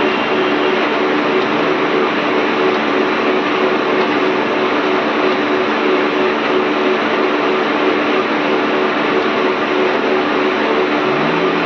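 A metal-working machine tool running steadily while boring out a pulley: a constant hum with a loud, even hiss over it. Near the end, a lower tone comes in and rises slightly.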